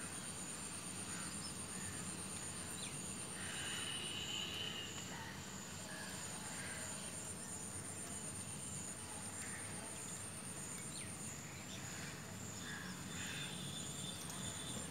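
Wetland ambience: an insect's thin, very high, fast-pulsing trill that breaks off for a couple of seconds a few seconds in, with scattered short bird calls and a low steady rumble underneath.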